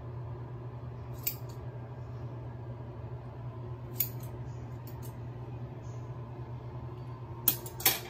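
Hair-cutting scissors snipping through hair: a handful of short, crisp snips spread across a few seconds, the two loudest close together near the end, over a steady low hum.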